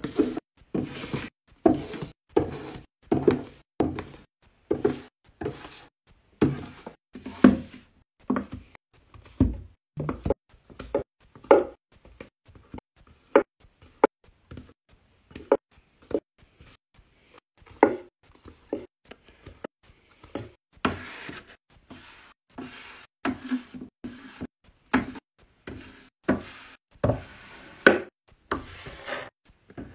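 Books being set down and stacked on a shelf: a run of short knocks, one or two a second, as hardcovers and paperbacks are placed and tapped into line. There are a few longer sliding scrapes as books are pushed into place.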